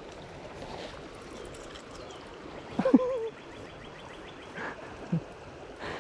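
River water running steadily with light splashing. About three seconds in there is one short voice-like sound.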